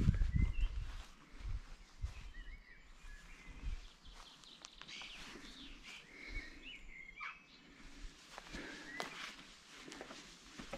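Outdoor birdsong: birds chirping in short, twittering phrases now and then, with faint footsteps and a few light clicks and low thuds.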